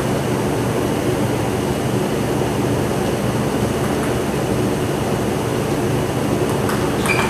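Steady droning hum of an air-conditioning unit, with a few faint table tennis ball clicks near the end.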